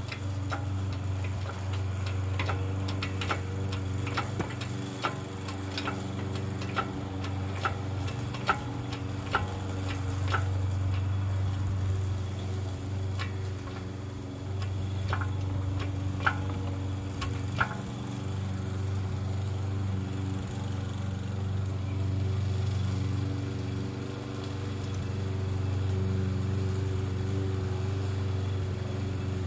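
A small engine running steadily, its drone dipping briefly a few times. Over it, a run of sharp clicks about two a second that thins out and stops about eighteen seconds in.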